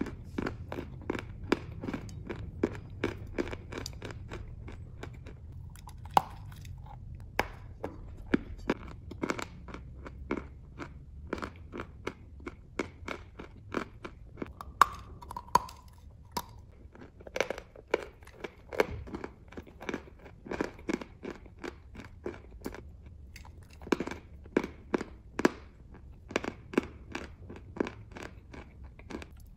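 Close-miked chewing of a bitten-off chunk of white chalk: a steady run of crisp crunches, about two or three a second, as it is ground between the teeth.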